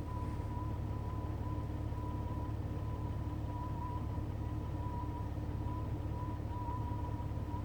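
Jeep engine idling with a steady, thin, high whistle over its low rumble; the whistle wavers slightly but never stops. It is not the radio, and its cause is unknown.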